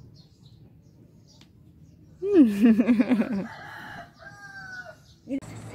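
A child imitating a rooster crow: a loud cry about two seconds in, swooping in pitch and then wobbling rapidly for about a second, followed by a shorter, fainter, higher call that falls away.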